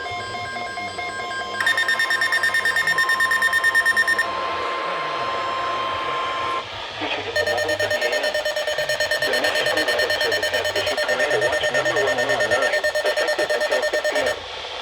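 NOAA Weather Radio 1050 Hz warning alert tone sounding steadily for the first six and a half seconds, announcing a tornado watch. Over it, weather radio receivers' own electronic alarms beep rapidly, first about one and a half to four seconds in and again from about seven seconds to near the end.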